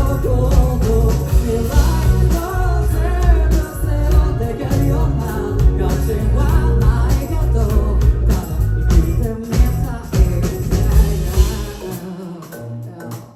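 Rock band playing live with a singer over drums, bass and guitar; about twelve seconds in the bass and drums drop away and the sound thins out and fades.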